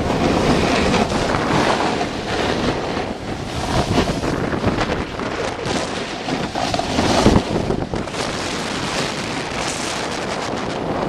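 Wind rushing over a small camcorder's microphone while riding downhill, mixed with the steady hiss and scrape of snowboard edges carving across snow, swelling briefly about seven seconds in.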